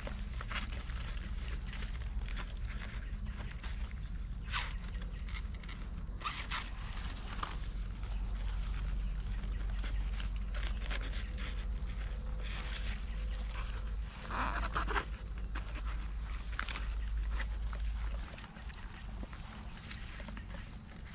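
A steady, high-pitched insect chorus holding two even pitches throughout. Over it are scattered crackles of dry grass and leaves being rustled by gloved hands working in the undergrowth, the loudest a little past the middle. Under everything is a low rumble that eases near the end.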